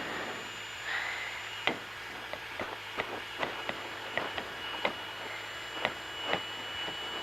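Irregular light clicks and taps, roughly one or two a second, over a faint steady hum and a thin high whine.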